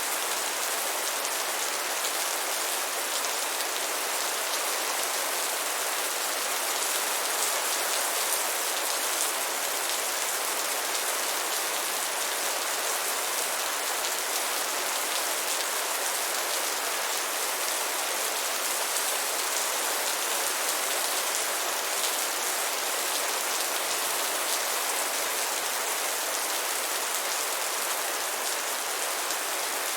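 Steady rain falling and pattering on a surface, a constant dense hiss of drops with many small ticks.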